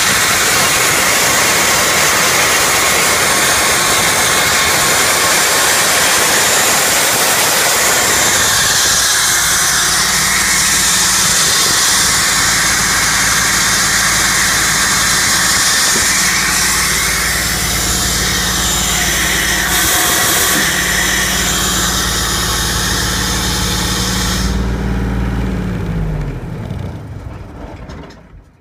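Brinkmann Estrich Boy 450 screed pump running: a steady engine drone under a strong hiss. Near the end the machine is switched off and runs down, its pitch sinking as the sound dies away.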